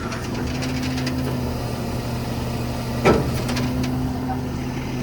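Cummins diesel engine running steadily, driving the hydraulics as the truck's hydraulic outriggers extend. There is a single sharp clunk about three seconds in.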